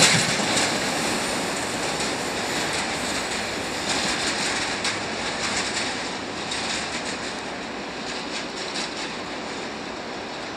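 Container freight train rolling away over the rails: a steady rush of wheel and rail noise that slowly fades as the train recedes, with bursts of wheel clicks over the track about four seconds in and again a little later.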